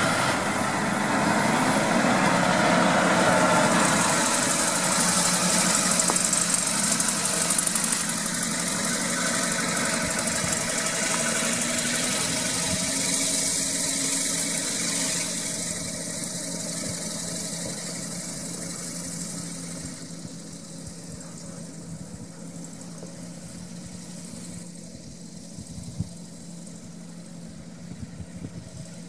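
John Deere 6215R tractor's six-cylinder diesel engine running steadily under way, with a hiss over the top. The sound fades gradually over the second half as the tractor moves away.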